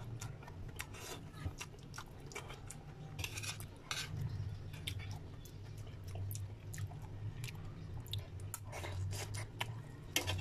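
Metal spoon scraping and clicking against a ceramic plate as it cuts through and scoops up pieces of a soft omelette, in scattered short strokes over a steady low hum.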